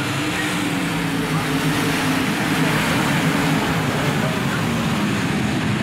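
Dirt-track race cars' engines running together on the track, several engine tones blending into one steady sound.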